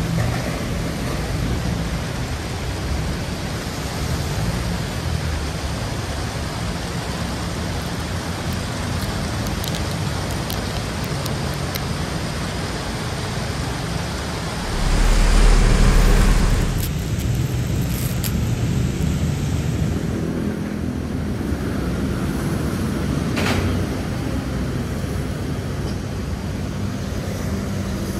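Steady outdoor street noise of traffic on wet roads, with a louder low rumble for about two seconds around the middle.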